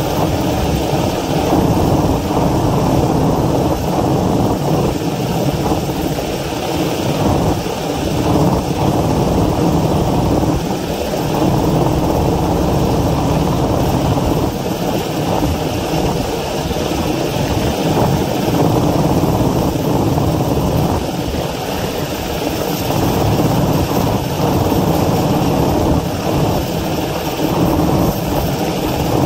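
Helicopter hovering overhead while lifting a load on a long line: steady rotor and engine noise, swelling and easing slightly.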